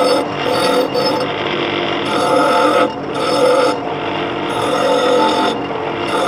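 Small bench grinder running with a steady motor whine, a metal piece pressed against the spinning wheel again and again. Each contact adds a harsh hiss lasting up to about a second.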